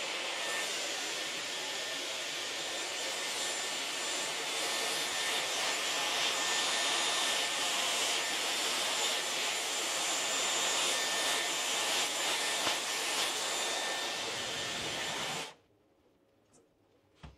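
Dyson hair dryer running steadily: a rush of blown air with a thin high motor whine over it, switched off about fifteen seconds in.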